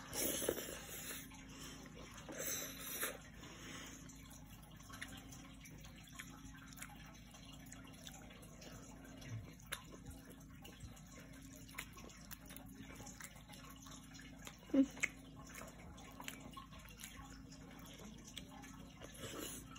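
Quiet sounds of eating rice and dal by hand: fingers mixing food on a plate and chewing, with scattered small clicks. Two brief rustling noises come in the first few seconds and a sharper tap about three-quarters of the way through.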